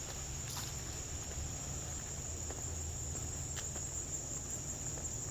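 Steady high-pitched chorus of insects, crickets or katydids, shrilling without a break, with a few soft rustles or steps and a low rumble beneath.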